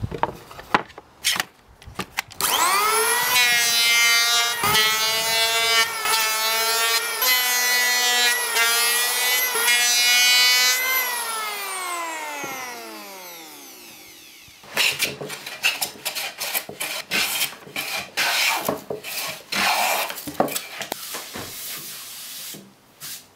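Electric hand power planer spinning up, running through passes over a glued-up pine board with its pitch dipping briefly several times, then winding down in a long falling whine. After it stops come several seconds of short scraping strokes on the wood.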